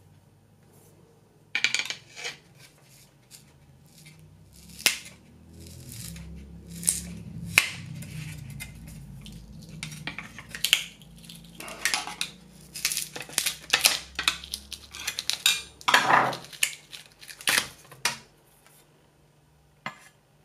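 Copper clad circuit board being pried up and lifted off a metal 3D printer bed: a run of sharp clicks, taps and short scrapes, the longest scrape about 16 seconds in.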